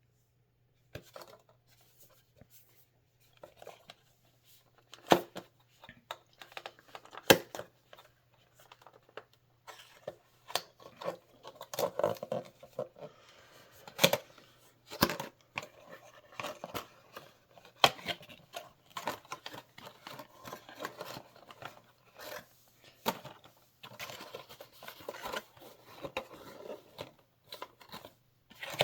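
A smart light bulb's cardboard box and packaging being handled and opened: a few sharp taps and knocks, then a long stretch of rustling, tearing and scraping broken by clicks. A faint steady low hum sits beneath.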